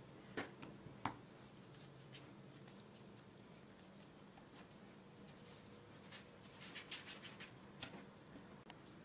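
Faint handling sounds of hands rounding soft yeasted dough into balls on a floured wooden board: two sharp taps early on, then soft brushing and scuffing a little after six seconds, over a low steady room hum.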